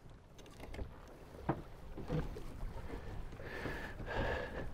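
Water lapping against a boat's hull, with a few sharp knocks. Near the end comes a short, steady high whine.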